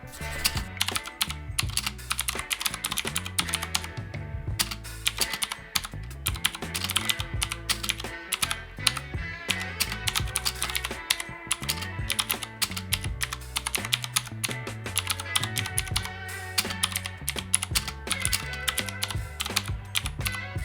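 Fast, continuous typing on a Drop ALT 65% mechanical keyboard with clicky Cherry MX Blue switches in an aluminium case: a dense, irregular patter of key clicks. Background music plays underneath.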